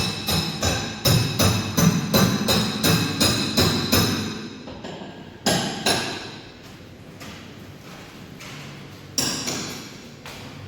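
Background dance music with a fast percussive beat that drops out about four and a half seconds in, leaving two single hits over a quieter backing.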